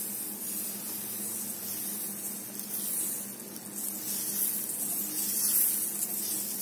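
Thin batter sizzling on a hot frying pan as it is spread out in a spiral with a ladle, a steady hiss that swells and eases a little.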